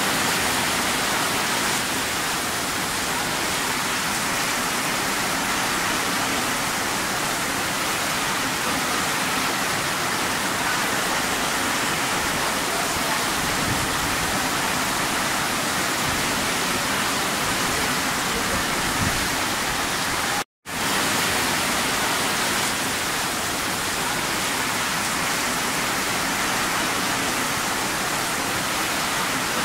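Heavy rain pouring down on a paved street, a steady, even hiss. The sound cuts out for an instant about twenty seconds in.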